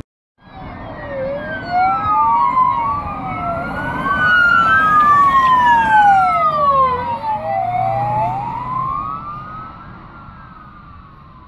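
Police car siren wailing in slow rising and falling sweeps, two tones crossing out of step. It comes in about half a second in, grows louder as the car drives past, and fades as the car moves away.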